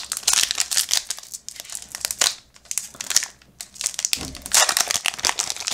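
Foil wrapper of a trading-card pack crinkling and tearing as it is pulled open by hand, with a quieter spell midway.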